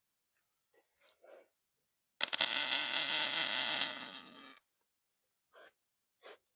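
Electric welding arc on a steel pipe: a crackling buzz that starts abruptly about two seconds in, lasts about two and a half seconds and cuts off, with a few faint clicks before and after.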